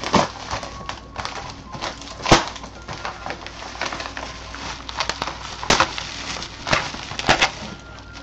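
Yellow padded paper mailer being torn open and a plastic-wrapped item pulled out of it: crinkling, crackling paper and plastic, with several sharper crackles.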